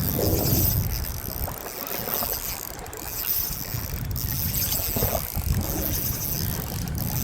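Wind buffeting the microphone on an open boat, with waves splashing against the hull in an uneven, gusty rumble.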